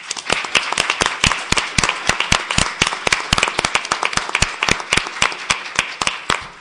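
Audience applauding: many hands clapping together. It breaks out at the start and eases slightly near the end.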